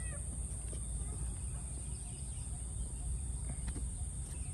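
Outdoor ambience: a steady low rumble and a constant high-pitched hiss, with a few faint short chirps and ticks.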